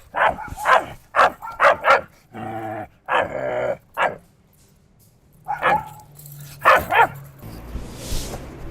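A small dog barking in quick yaps, with two longer drawn-out whines in the middle and a few more barks later on.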